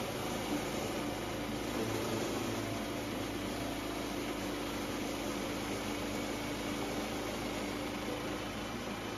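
Portable band sawmill's small gas engine running steadily at speed while the band blade cuts lengthwise through a white oak log, a steady hum with the hiss of the saw in the wood.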